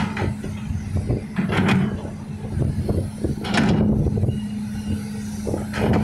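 Hitachi hydraulic excavator's diesel engine running steadily with a constant low hum, with a few short rushing noises every couple of seconds on top.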